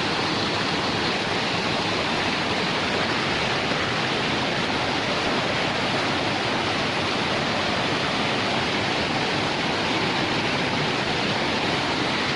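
Steady, even roar of falling water from the Mata Yangu waterfall.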